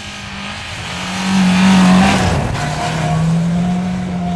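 Rally car engine running hard at high revs as the car approaches and passes close by on snow, with a hiss of tyres and snow spray at its loudest about two seconds in. The engine note drops just after, then holds steady as the car slides away.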